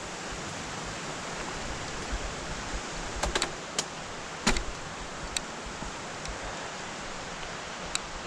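Steady rushing noise while riding a bicycle on a forest track, with a few sharp clicks and knocks scattered through it, loudest about four and a half seconds in.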